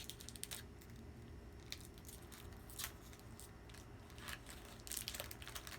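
Pokémon trading cards and a foil booster-pack wrapper being handled: faint crinkles and short light clicks and scrapes, a handful of them scattered through, over a low steady room hum.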